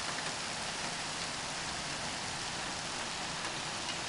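Heavy rain pouring steadily onto an asphalt street, pavements and trees: an even, unbroken hiss.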